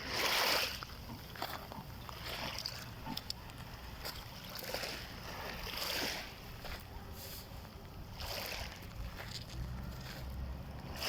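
Small sea waves lapping and splashing at the shore, a soft wash every two seconds or so.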